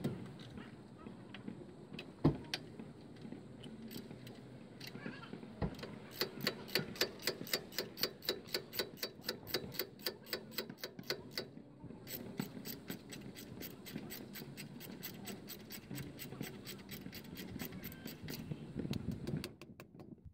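Hand ratchet clicking in quick, even strokes, about four or five clicks a second, as the brake caliper mounting bolts are cranked down, with a short break in the middle. A single knock about two seconds in.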